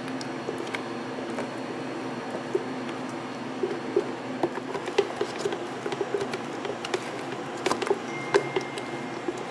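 Red silicone spatula scraping and tapping inside a plastic blender jar as thick mango purée is scraped out into a tub: a run of short, irregular clicks and taps, busiest from about three seconds in, over a steady background hum.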